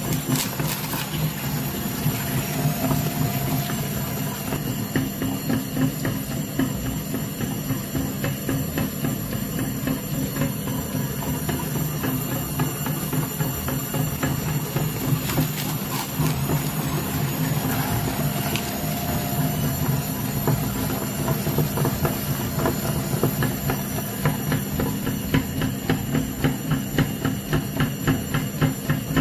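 Electric meat grinder motor running steadily, with irregular crunching and knocking as something hard is forced through the auger; the knocks come faster and more evenly near the end.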